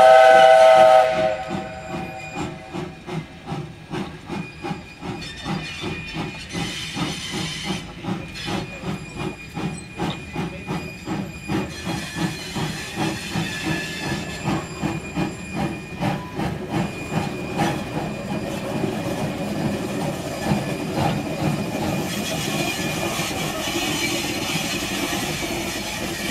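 Flagg Coal Co. No. 75 steam locomotive working under way with a train. A blast on its steam whistle ends in the first second or two. It is followed by the steady chuff of its exhaust, about two beats a second and quickening a little, with steam hissing that grows louder near the end as it draws close.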